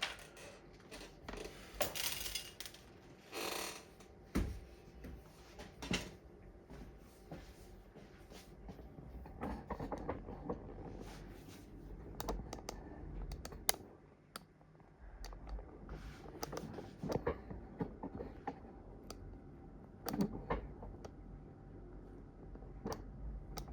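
Tools and parts being handled on a workbench: scattered clicks, taps and short rustles at irregular intervals.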